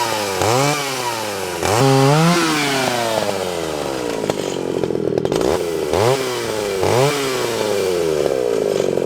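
Pioneer P28 two-stroke chainsaw running and being revved in quick throttle blips, its engine note shooting up and dropping back again, with a steadier running stretch between the bunches of revs.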